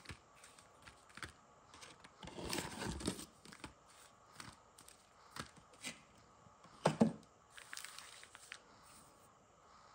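Foil trading-card packs crinkling and rustling as they are handled and laid out on a stone countertop, with a longer crinkle a couple of seconds in and a sharper knock about seven seconds in.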